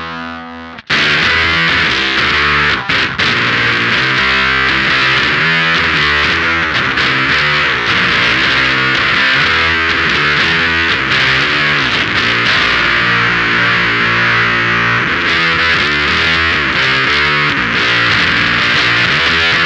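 Electric guitar played through the Screws octave fuzz pedal into an amp: a held, heavily fuzzed chord fades and stops about a second in, then a thick, distorted riff with the octave fuzz is played without a break.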